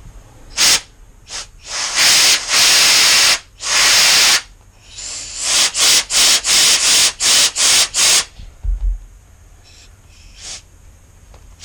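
Compressed-air blow gun hissing in bursts into a 1967 MGB front brake caliper, trying to force the seized piston out of its bore. There are two longer blasts, then a quick run of about eight short ones, as the piston, stuck in the bore by built-up crud, resists.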